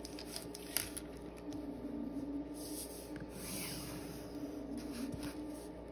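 Graphite pencil drawing straight lines on paper along a ruler: a soft scratching in several separate strokes.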